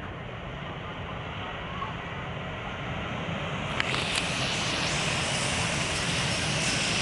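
Jet airliner engines giving a steady rushing noise that slowly grows louder, turning brighter and hissier about four seconds in, with a couple of faint clicks there.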